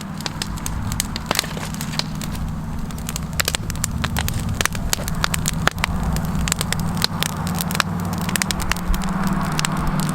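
A compact diesel tractor engine running steadily, growing slowly louder, with many sharp crackling clicks throughout.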